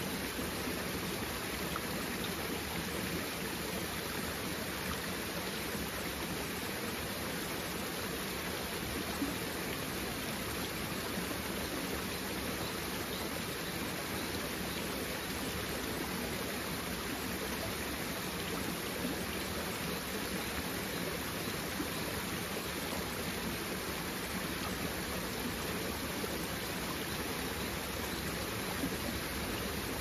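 Shallow mountain stream running over rocks and down a small cascade: a steady, even murmur of flowing water.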